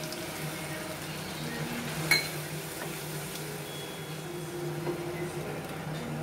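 Masala being stirred with a wooden spatula in a kadai over a steady low kitchen hum, with one sharp metal clink about two seconds in.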